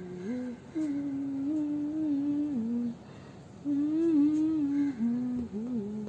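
A person humming a tune with held notes that step and glide in pitch, pausing once in the middle.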